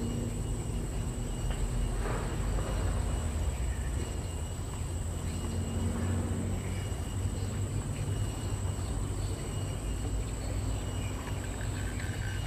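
Outdoor riverbank ambience: a steady low rumble under a constant high-pitched insect drone, with a few faint small knocks.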